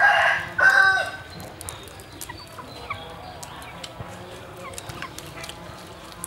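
A rooster crowing, its call in two parts and ending about a second in. Faint scattered clicks and small chirps follow.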